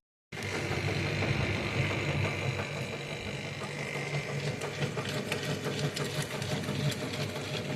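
Whirlpool top-loading washing machine running steadily, its motor driving the agitator, which is spinning again after the repair. There is a low hum with a faint high whine in the first few seconds.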